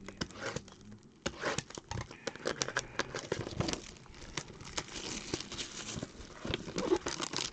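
Rustling, crinkling and light clicking of trading-card packaging and cards being handled and unwrapped.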